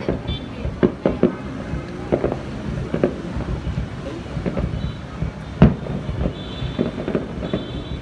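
Fireworks going off in an irregular series of bangs and crackles, with the loudest single bang about five and a half seconds in.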